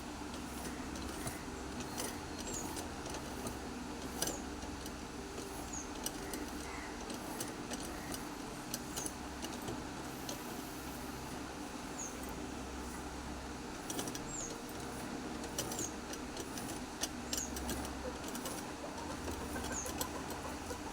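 Sewing machine running in short stretches, with light metallic clicks as hooks are stitched onto a blouse.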